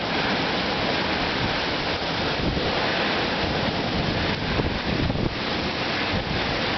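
Strong storm wind blowing steadily, with gusts buffeting the microphone in an uneven low rumble.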